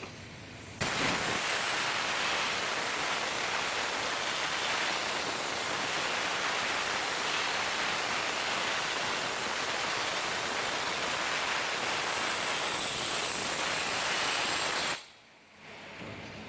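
Plasma arc from a CNC plasma cutter powered by a Victor UltraCUT 400XT, cutting: a loud, steady hiss with a faint high whine. It starts suddenly about a second in and cuts off sharply near the end.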